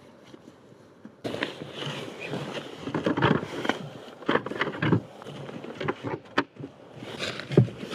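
Plastic storage case being handled in a sled: a run of plastic clicks and knocks over the rustle of snowsuit fabric and gloves, starting abruptly about a second in. The lid is shut partway through, and the loudest knock comes near the end.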